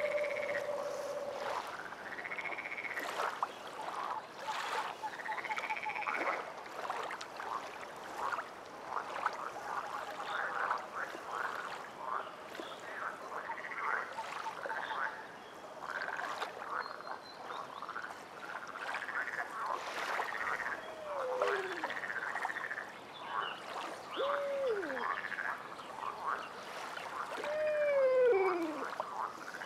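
A chorus of frogs croaking, many overlapping repeated calls, with a few lower calls that slide down in pitch in the last ten seconds.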